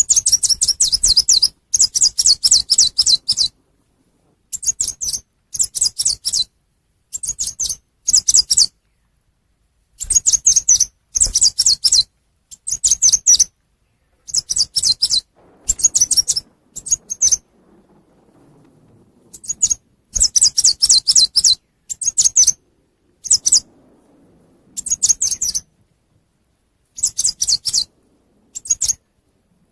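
Lure recording of the small songbird called chim sâu xanh, giving high, rapid twittering calls. The calls come in short phrases of one to one and a half seconds, repeated over and over with brief pauses between them.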